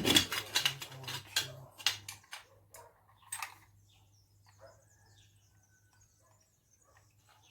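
Aluminium scrap pieces from a stripped washing-machine motor clattering and knocking together as they are handled for weighing: a dense run of clatter for about the first two seconds, then a few faint knocks.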